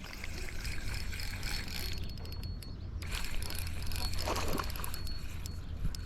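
Fishing reel being cranked in, a steady mechanical whirring in two stretches, over a low rumble of wind and handling on the microphone.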